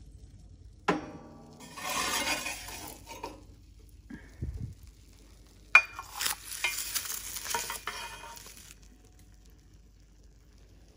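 A stainless steel scoop clinks against the stove's metal grill and scrapes as roasted garlic bulbs are scooped off the hot grill, with sizzling. It comes in two bouts, about a second and six seconds in, each a sharp clink followed by a few seconds of scraping hiss.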